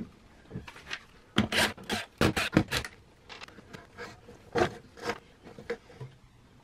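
Furrion RV stereo head unit being worked out of its wooden cabinet opening: a quick cluster of scrapes and knocks about a second and a half in, then scattered lighter knocks as it slides free.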